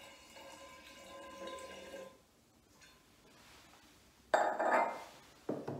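A thin stream of strained wine must pouring from a glass jug into a glass demijohn for about two seconds. About four seconds in comes a loud glassy knock as the jug is set down, and a second, shorter knock near the end.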